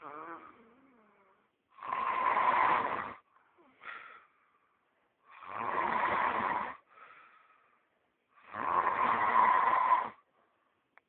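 A man snoring loudly: three long snores about three seconds apart, each lasting about a second and a half, with much softer breaths between them.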